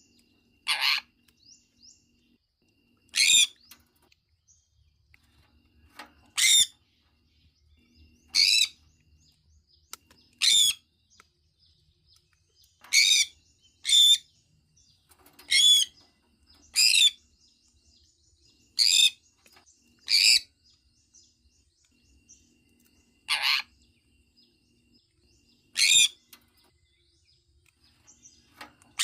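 A sun conure giving short, sharp chirping calls, one every one to three seconds, about a dozen in all, with quiet between them.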